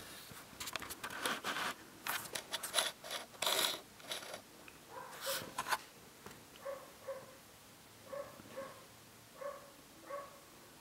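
Quick rustling and scraping from handling for the first few seconds. Then a young British Shorthair kitten mews in short, high squeaks, mostly in pairs, every second or so.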